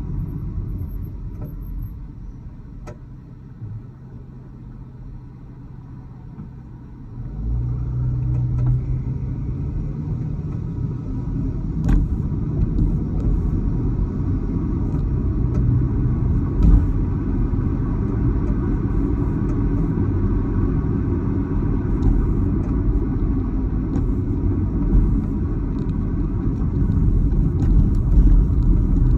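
Dodge Challenger on the move, a steady low road-and-drivetrain rumble that grows louder about seven seconds in and stays up. A few single sharp knocks stand out along the way; the owner hears a clunk from the rear left and does not know its cause.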